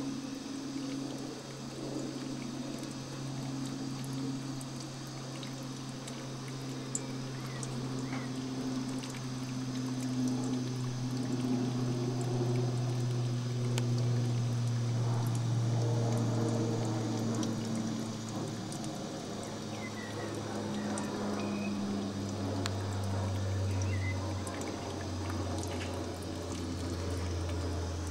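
DIY steamer running while steam-cleaning a beehive brood box: steam and water gurgling and trickling, with a steady low hum that drops in pitch about two-thirds of the way through.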